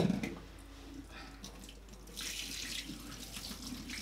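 A thump right at the start, then a kitchen tap running water from about two seconds in.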